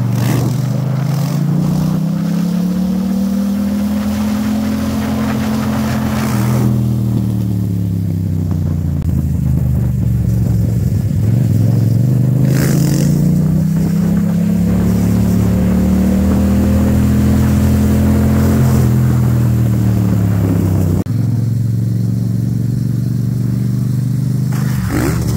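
Dirt bike engine held on the throttle through wheelies: its pitch climbs slowly over several seconds in one gear, drops back, then climbs again, with abrupt jumps in the sound where clips are cut together. A short burst of noise comes right at the end.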